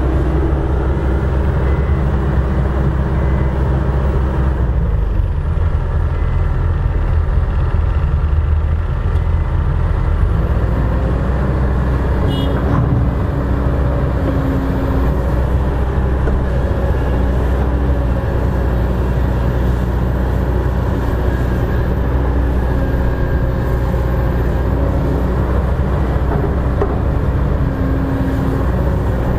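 Kobelco SK200 hydraulic excavator's diesel engine running steadily under load while it digs and loads soil, with a single sharp knock about twelve seconds in.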